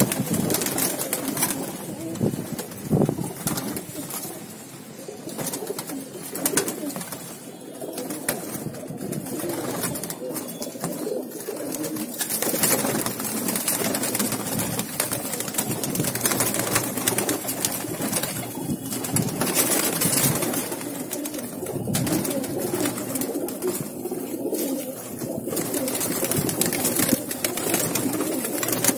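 A flock of domestic pigeons cooing continuously in a crowded loft, with frequent wing flaps and scuffling among the birds.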